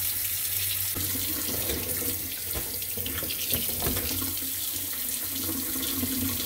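Kitchen faucet running a steady thin stream into a stainless-steel sink and down the open drain, a trickle run to test the newly fitted drain for leaks.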